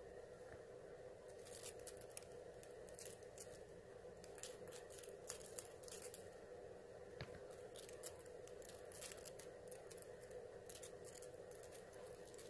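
Faint crackling and scratching of long hair being raked close to the microphone by metal fingertip claws, in scattered sharp crackles over a low steady hum.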